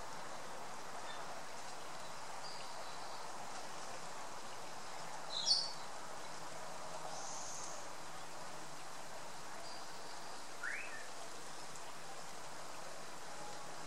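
Steady outdoor background noise with a few short bird chirps, the loudest about five and a half seconds in and a rising one near eleven seconds.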